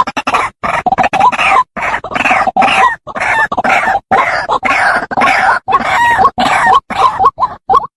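White-breasted waterhen calling: a loud, rapid run of harsh croaking notes separated by short gaps, running together in longer stretches mid-way and breaking into shorter, more spaced notes near the end.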